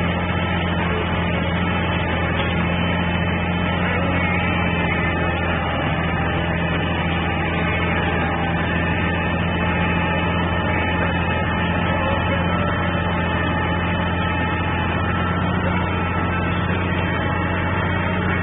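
Fendt 611 Turbomatik E tractor engine running steadily under load, pulling a four-furrow plough through the soil, heard from the cab. A constant deep hum with no change in revs.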